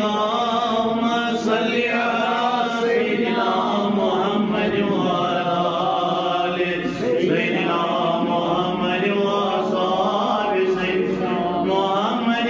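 Islamic devotional chanting: a voice sustaining long melodic notes that glide from one pitch to the next, without a break.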